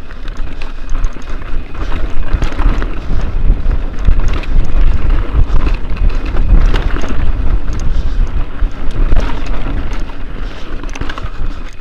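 Wind buffeting the microphone of a handlebar-mounted action camera on a moving mountain bike, with the knobby tyres and frame rattling and crunching over a loose, stony trail.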